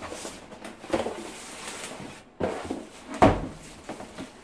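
Cardboard box being handled and tipped over onto a granite countertop: rustling and scraping with several knocks, the loudest thump a little over three seconds in.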